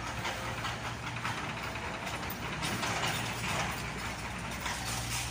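Komatsu PC70-8 excavator running and travelling, its engine note under a continuous clattering, ratcheting rattle of steel tracks that swells in the middle.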